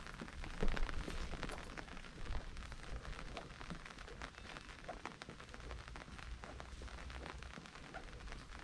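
Rain falling: many small, irregular drop hits close to the microphone over a low rumble, with one louder knock under a second in.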